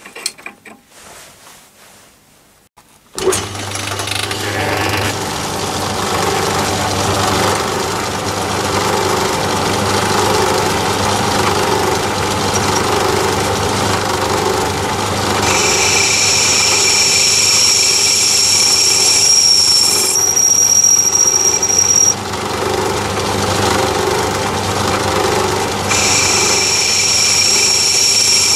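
Metal lathe switched on about three seconds in and running steadily with a low motor hum while a boring bar faces the back of the bore in an aluminium die holder. From about halfway a high-pitched cutting whine joins in, drops out for a few seconds, and returns near the end.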